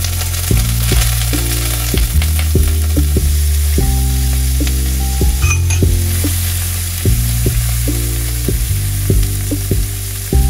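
Shrimp and squid frying in garlic oil, sizzling steadily in the pan while a spatula stirs them, under background music with a low melodic line.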